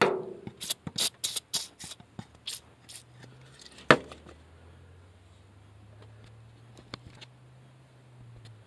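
Aerosol penetrating oil sprayed in several short quick squirts onto the clutch master cylinder's mounting nuts through the first three seconds. A single sharp knock comes about four seconds in, and a faint low steady hum follows.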